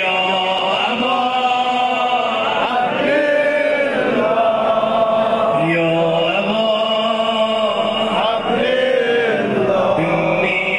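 A male eulogist chanting a Shia mourning lament (noha) for Ashura in long, held, wavering melodic lines.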